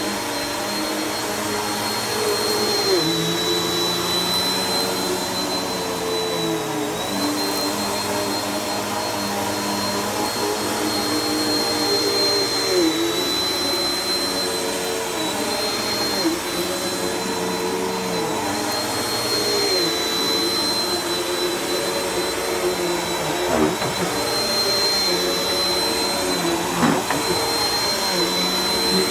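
Bissell PowerForce bagless upright vacuum cleaner running over a shaggy rug with a steady high whine. Its tone dips briefly every few seconds, and there are a couple of short knocks near the end.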